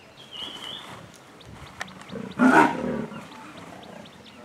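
A caged leopard gives one short, loud snarl about two seconds in. The cat is a trapped leopard, agitated in its transport cage.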